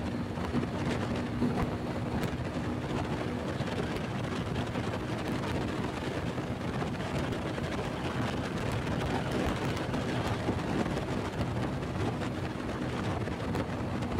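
Honda Pop 100's small single-cylinder four-stroke engine running steadily at cruising speed, with wind noise rushing over the microphone.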